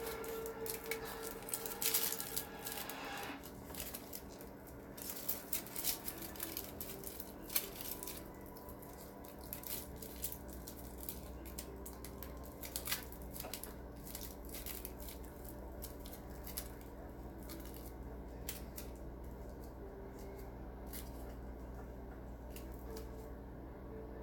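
Aluminium foil crinkling and crackling as a small foil-wrapped bundle is handled and picked at. The crackles come in short irregular bursts, busy in the first several seconds and sparser after, over a faint steady hum.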